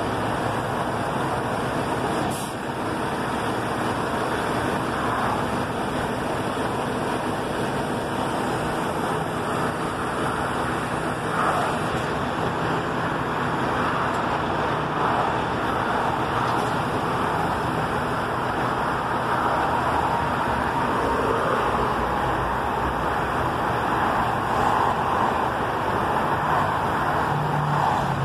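Steady vehicle noise from a large truck, with a low engine hum running under a continuous wash of road and traffic noise.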